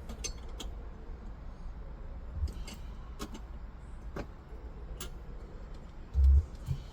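Scattered light clicks and taps of parts being handled and fitted by hand, over a steady low rumble, with one louder dull thump about six seconds in.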